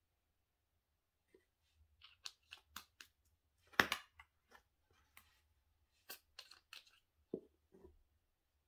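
Small plastic diamond-painting bead jars being handled as dryer-sheet pieces go into them: a scattered series of faint sharp clicks and rustles, the loudest about four seconds in.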